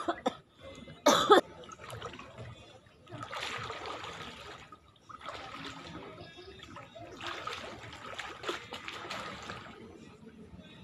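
Swimming-pool water splashing and sloshing as people swim and float, in three stretches of a second or two each. Two short loud sounds come in the first second and a half.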